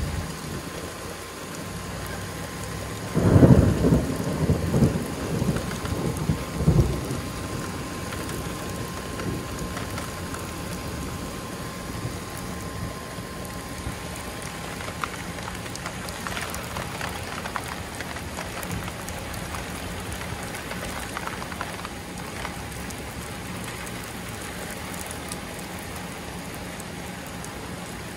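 Steady rain falling, with a clap of thunder about three seconds in that rumbles on in rolling peaks for about four seconds before the rain is left alone.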